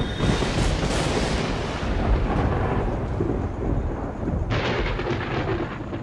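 Thunder rumbling through a storm, with a second, sharper peal breaking in about four and a half seconds in.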